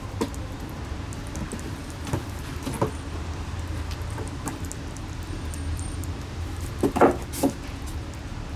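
A kitten lapping yogurt from a ceramic plate: scattered soft, wet clicks over a steady low hum. About seven seconds in come three louder short sounds close together.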